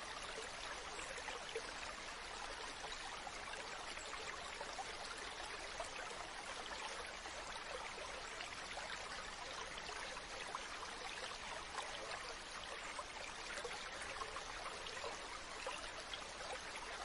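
A stream of running water flowing steadily: an even, unbroken rush with fine flickering detail and no pauses or changes.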